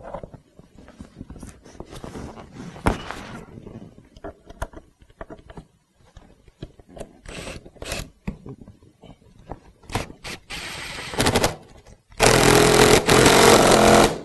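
Scraping and rustling as the leather-covered seat back and frame are handled and lined up. Then a cordless impact driver runs briefly about ten seconds in and hammers loudly for the last two seconds, running in the bolt that joins the seat back to the seat bottom.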